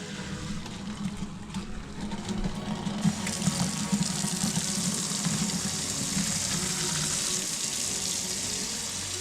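Boiled pasta being drained into a kitchen sink: the hot cooking water pours out with a steady rush that grows fuller and louder about three seconds in.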